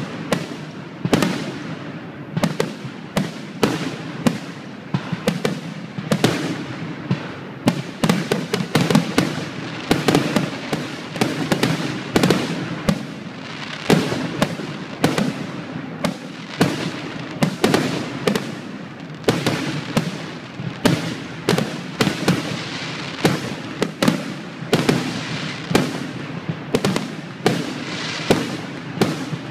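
Aerial firework shells bursting in quick succession: many sharp bangs, often more than one a second, with echoing rumble between them.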